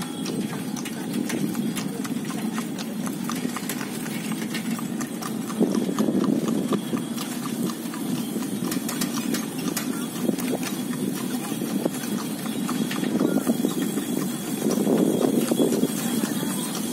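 Cycle rickshaw (becak) rolling over asphalt: a steady stream of small clicks and rattles from the frame over a low rumble, which grows louder about six seconds in and again near the end.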